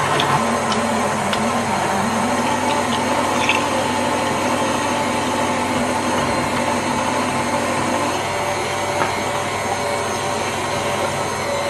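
KitchenAid stand mixer running at speed 4 with its metal food grinder attachment, grinding raw chicken livers. A steady motor hum, with a few small clicks.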